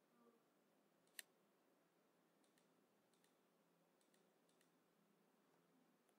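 Near silence, broken by a single sharp computer-mouse click about a second in as a drop-down item is selected, followed by a few much fainter ticks.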